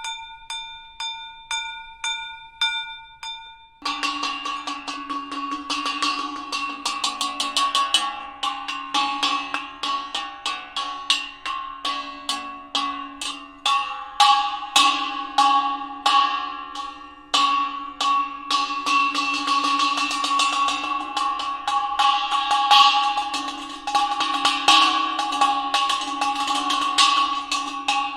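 Bells struck in a quick, even rhythm: a single bell at first, about three strokes a second. About four seconds in, several bells of different pitches take over in a dense, continuous ringing.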